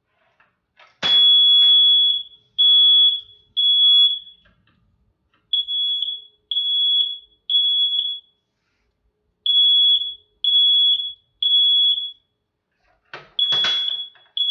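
Horn-only MHW fire alarm horn sounding the temporal-3 (code-3) evacuation pattern: loud, high, steady beeps in groups of three, with a pause between groups, repeating. A click comes just before the first, longer beep, and there is some handling noise near the end.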